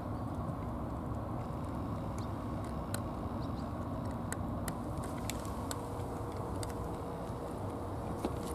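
A cat eating wet food from a dish, with a few brief moist clicks of chewing scattered through the middle, over a steady low background rumble.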